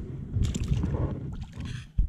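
Water splashing and sloshing as a rainbow trout is released by hand into shallow lake water, in two short bursts: about half a second in and again near the end, over a low wind rumble on the microphone.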